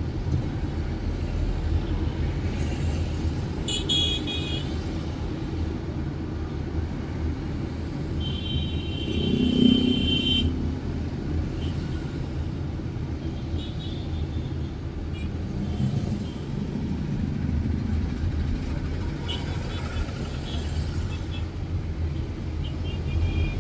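City road traffic: a steady rumble of engines and tyres, with several car horn toots, the longest about nine seconds in.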